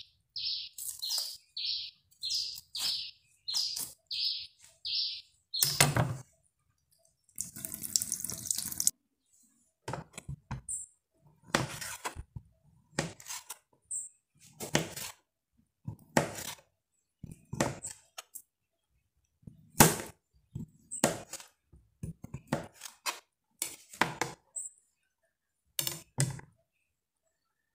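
Knife slicing a calabresa sausage into rounds on a plastic cutting board, a short knock each time the blade reaches the board, roughly once a second. A bird chirps repeatedly for the first five seconds or so, and there is a brief rush of noise around eight seconds in.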